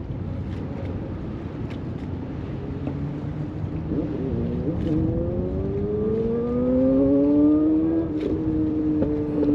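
Motorboat engine throttling up: a low rumble, then from about four seconds in its pitch climbs steadily for some four seconds and levels off into a louder, steady drone.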